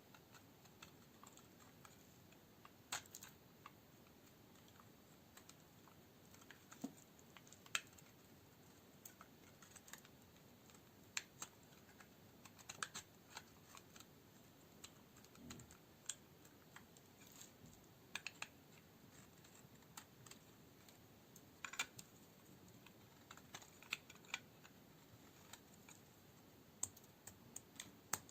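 Knife cutting dry green coniferous soap into cubes, with crisp crackles and clicks that come in irregular clusters as the blade breaks through the hard, dry bar.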